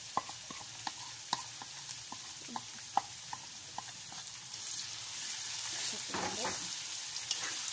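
Chopped onions sizzling in hot oil in a wok, on top of garlic fried golden, with a wooden spatula clicking and scraping against the pan as they are stirred. The sizzle grows louder about five seconds in.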